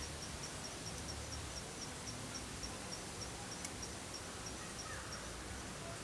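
A cricket chirping in an even rhythm, about five short high chirps a second, over a steady background hiss; the chirping stops about five seconds in. A single sharp click comes a little past halfway.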